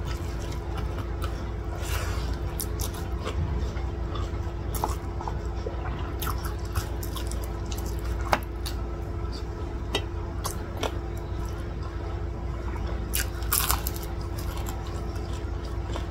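Close-up eating sounds: fingers kneading curry-soaked rice with wet squishing, then chewing with scattered sharp mouth smacks and clicks. A steady low hum runs underneath.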